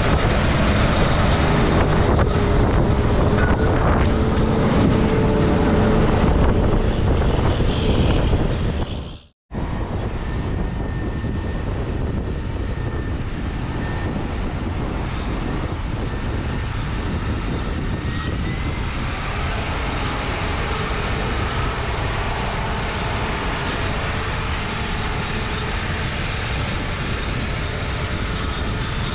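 Large farm machinery running steadily: tractor diesel engines and beet harvesting equipment. About nine seconds in, the sound cuts out for an instant and comes back slightly quieter.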